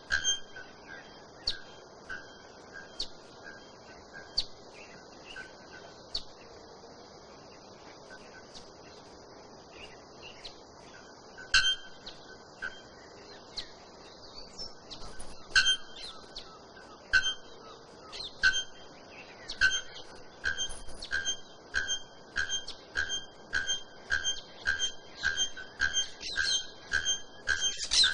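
Bare-throated bellbird (araponga) giving its metallic, anvil-like 'tonk' calls. A few scattered strikes come first, then a pause of several seconds. From about midway a steady run of strikes builds, quickening to about two a second near the end.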